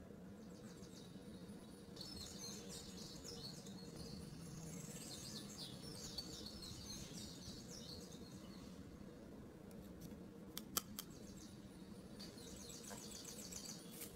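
Faint squeaking and scratching of 3D puzzle pieces rubbing as they are pressed and slotted together by hand, with a few light clicks near the end.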